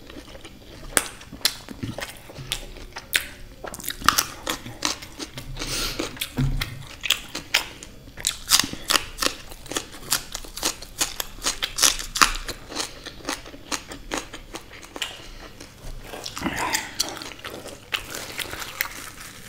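Close-miked chewing and biting of food: a dense run of crisp crunches, with raw cucumber slices among what is being bitten and chewed.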